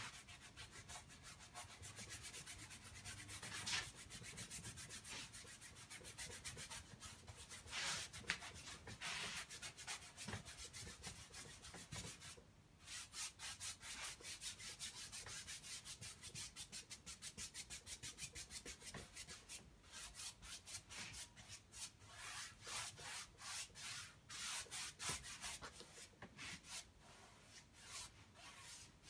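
Paintbrush scrubbing oil paint into unstretched canvas: faint, rapid back-and-forth rubbing strokes, pausing briefly about halfway through, then quickening into a steadier rhythm.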